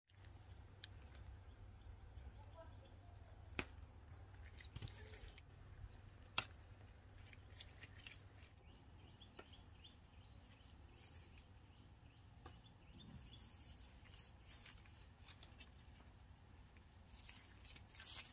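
Faint sounds of chayote being picked by hand from the vine: a dozen or so sharp clicks and snaps of stems, the loudest about three and a half and six and a half seconds in, with rustling of vine leaves in the second half over a low steady rumble.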